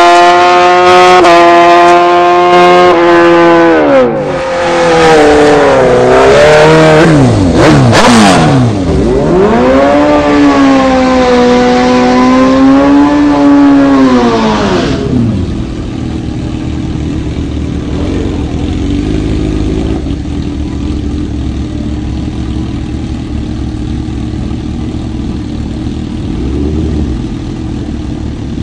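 Drag-strip engine noise: a racing vehicle's engine pulling hard with steps in pitch at gear changes, then falling away as it slows. An engine then revs up, holds and drops off, followed by a sportbike's engine idling steadily at the starting line, rising slightly near the end.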